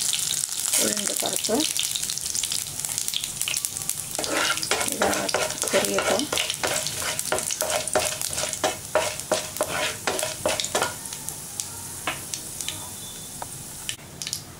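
Mustard seeds, cumin and curry leaves sizzling in hot oil in a non-stick kadai while a wooden spatula stirs them. A quick run of sharp clicks starts about four seconds in, and the sizzle dies down toward the end.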